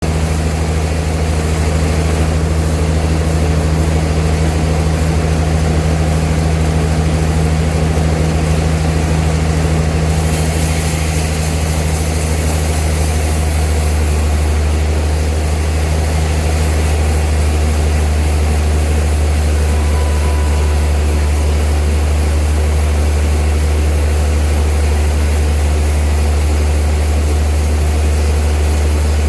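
Old sawmill machinery running with a steady, deep hum; a brighter hiss comes in about ten seconds in.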